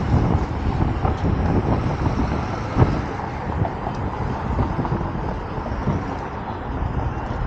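Wind rumbling on the microphone, mixed with road and traffic noise, during an electric scooter ride, with one sharp knock about three seconds in.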